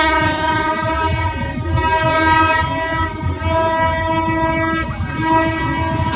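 Plastic toy party trumpets blown in long, steady held notes, a continuous horn-like honk that dips briefly about five seconds in.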